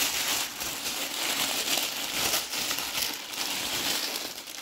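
Thin white paper crinkling and rustling without a break as a husky puppy paws and mouths at it.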